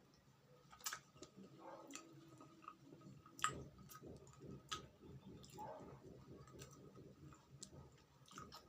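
Close-miked mouth sounds of eating soft, custard-frosted yema cake: quiet chewing with sharp, sticky clicks and smacks every second or so, one louder smack about three and a half seconds in.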